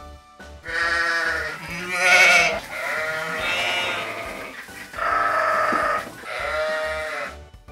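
Sheep bleating: about five drawn-out bleats in a row, each around a second long, the second the loudest.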